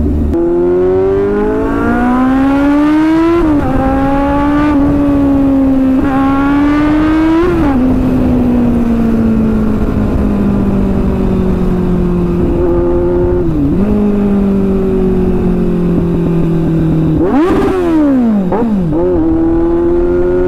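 Kawasaki Z800's inline-four engine, heard from the saddle while riding. The revs climb, drop at a gear change about three seconds in, and climb again until about seven seconds in. The engine then eases off slowly over several seconds, with a few quick throttle blips near the end.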